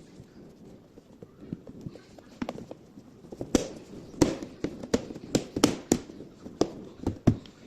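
A run of irregular sharp clicks and knocks, sparse at first, then louder and closer together from about three and a half seconds in.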